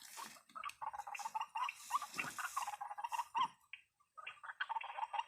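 White-breasted waterhen calls: a rapid run of short, repeated notes with a brief break about two-thirds of the way through.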